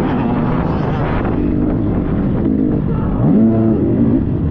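Dirt bike engine running under changing throttle. A little after three seconds in, the revs rise sharply.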